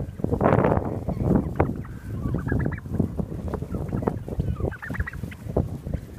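A flock of heritage turkeys calling: many short overlapping calls, with a louder burst about half a second in.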